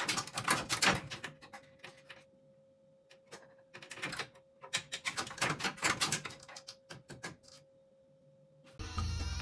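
Irregular clattering and knocking in short clusters, over a faint steady hum. Music starts near the end.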